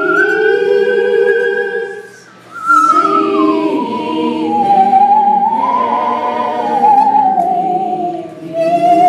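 Musical saw bowed with a violin-style bow, a high wavering tone with strong vibrato that slides from note to note, over a lower sustained accompaniment. The tone breaks off briefly about two seconds in, returns and glides down over several seconds, then starts rising again near the end.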